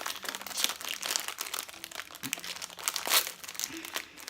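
Plastic snack wrapper crinkling and crackling in irregular bursts as it is handled, with the loudest crackle about three seconds in.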